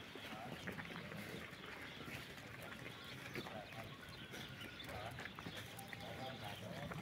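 Faint outdoor ambience of footsteps on stony dirt, with distant livestock bleating a few times.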